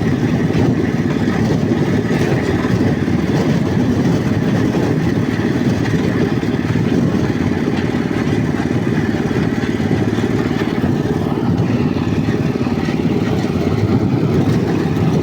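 Walk-behind tractor (motoblock) engine running steadily at low speed while the machine is driven along.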